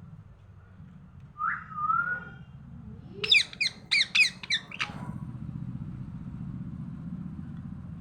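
Pet parrot whistling: a gliding whistle, then a rapid string of about six sharp chirps.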